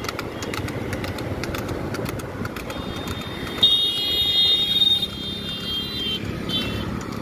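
Road and wind noise from riding along a busy highway. A high-pitched horn sounds for about two seconds near the middle.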